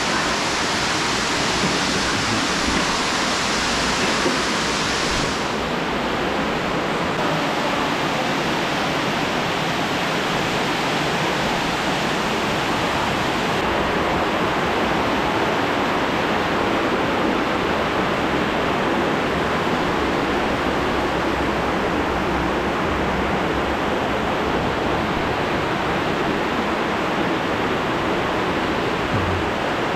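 Steady rush of fast-flowing water from a snowmelt-fed stream. The hiss loses some of its top end about five seconds in.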